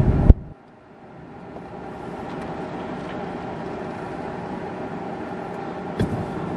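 Steady road and engine noise heard from inside a moving car, with a sharp click about a third of a second in and another near the end.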